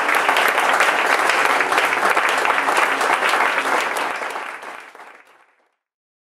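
A small audience applauding, the clapping fading out about four seconds in.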